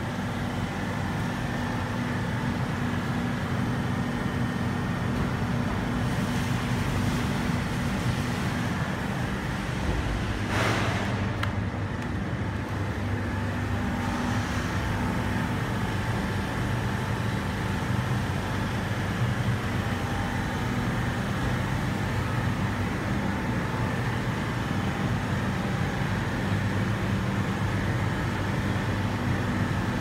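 Steady drone of ventilation fans and air moving through sheet-metal ductwork, with a low constant hum. A short hiss comes about ten seconds in.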